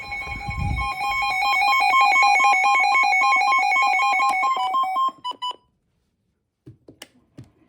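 Weather radio receiver's electronic alert tone: a loud, rapidly pulsing beep warbling between two pitches. It sounds for about five seconds, ends with a few separate beeps, and is followed by a few faint clicks. It signals an incoming severe weather warning broadcast.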